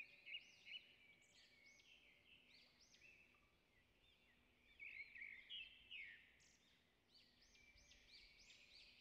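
Near silence with faint, high, repeated bird chirps, a little louder near the start and around the middle.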